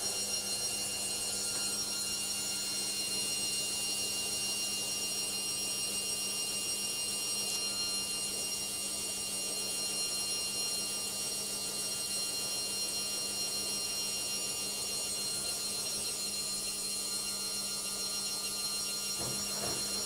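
Logik front-loading washing machine on a noisy spin near the end of its cycle: a steady high-pitched whine made of several tones, over a low hum.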